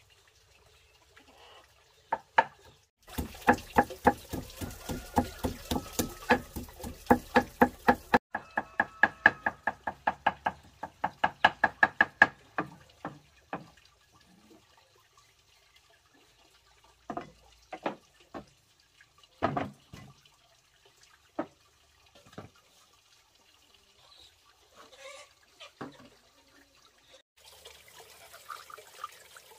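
Fast, even knife chopping on a wooden board, about four strokes a second for some ten seconds, then a few scattered knocks. Near the end, a faint wet sound of pulp being squeezed out by hand.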